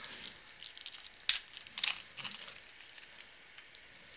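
Foil trading-card pack wrapper crinkling and tearing as it is pulled open by hand: a run of small crackles with two louder crinkles near the middle.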